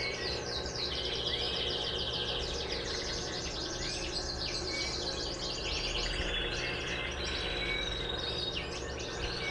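Birds chirping continuously in fast, repeated trills, over a steady low hum.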